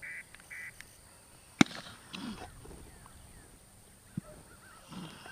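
Two short calls, then a single sharp shot about a second and a half in, fired as the training mark is thrown for the retriever, with a smaller click a few seconds later.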